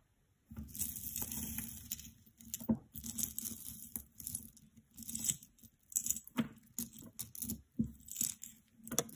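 Jewelry being handled on a canvas cloth: a rustle lasting about a second and a half near the start, then a string of light clicks and clatters as strands of stone beads are pulled across the cloth and untangled.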